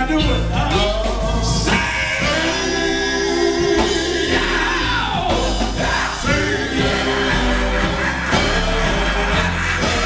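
Live gospel group performing: a male lead singer sings into a microphone over drums, electric guitar and keyboard, amplified through the church sound system.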